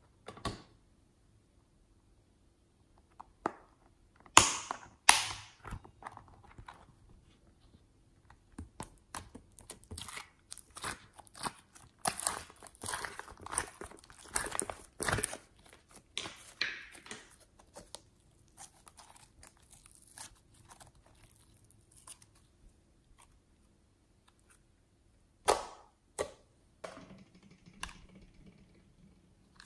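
Handling of plastic slime containers with slime being pressed out of them: a few sharp plastic clicks and snaps, then several seconds of dense crackling from the slime, with another sharp click near the end.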